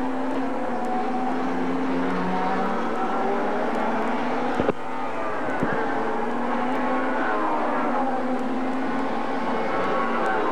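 V6 touring-car racing engines at speed, several cars together, their pitch rising and falling through acceleration and gear changes. Two sharp pops come about a second apart near the middle.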